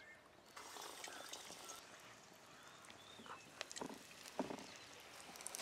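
Faint sizzle of a besan-battered egg chop frying in hot oil in a wok, starting about half a second in. Two soft wet squelches of batter being handled come near the end, with a few faint bird chirps.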